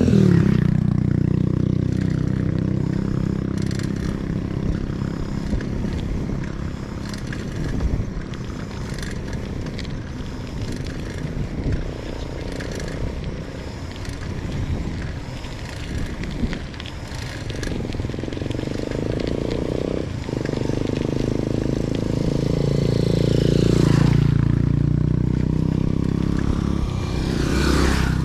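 A vehicle engine running on the road, with road and wind noise. Its pitch drops just after the start as it slows, then climbs again past the middle as it speeds up.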